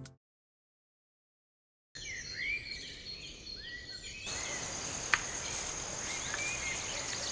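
Outdoor rural ambience after about two seconds of silence: birds chirping with short rising calls, then a steady high-pitched insect trill after a cut, with a single sharp click about five seconds in.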